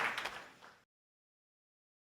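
Crowd applause dying away, its last scattered claps trailing off within the first second, then dead silence.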